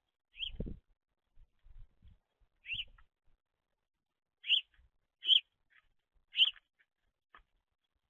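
House sparrows chirping at a seed feeder: five short, high chirps, each dropping slightly in pitch, spaced about a second apart, with the three loudest in the second half. A soft low bump comes about half a second in, from a bird moving on the feeder tray.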